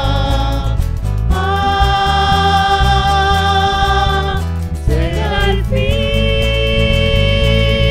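Music: long held sung notes over a steady, thudding low beat, with a short sliding passage about five seconds in.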